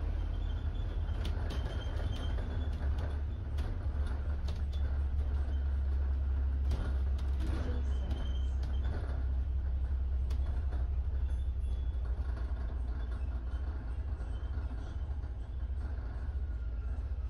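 Double-decker bus heard from inside on the upper deck while driving: a steady low rumble of the engine and drivetrain, with scattered short clicks and knocks from the cabin.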